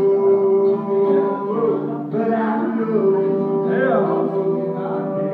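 A man singing, holding long notes, over an archtop hollow-body guitar played in chords.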